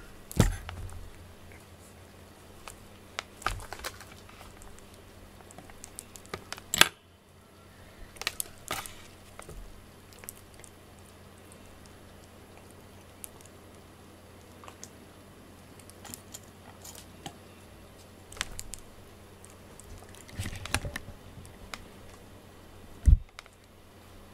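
Scattered light taps, clicks and rustles of a cat pawing at a string toy on a desk cushion, with a few sharper knocks and one louder thump near the end.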